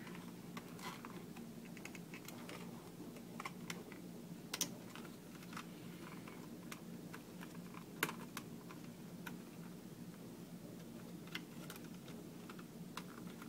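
Faint, scattered small plastic clicks and taps as fingers work the retaining clips and plastic frame of an Allen-Bradley PanelView 600 Plus, over a steady low hum. The sharpest clicks come at about four and a half and eight seconds in.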